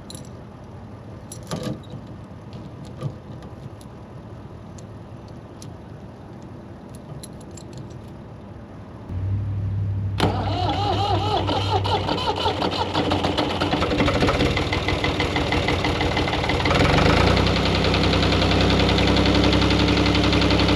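A few light clicks, then a vehicle engine starts about nine seconds in and runs steadily, picking up speed and getting louder near the end.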